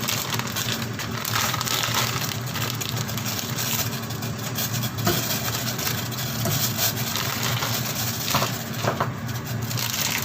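Pot of water at a boil on the stove, with a steady low hum under the bubbling. There are a few light knocks about halfway through and near the end.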